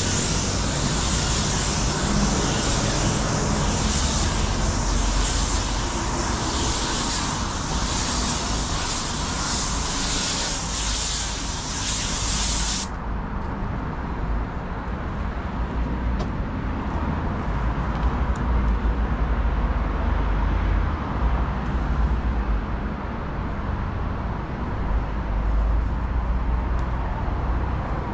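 Paint spray gun hissing as the wing is sprayed, stopping suddenly about 13 seconds in. A steady low rumble runs underneath throughout.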